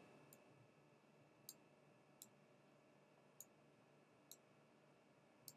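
Faint computer mouse clicks, five of them spaced irregularly about a second apart, against near silence.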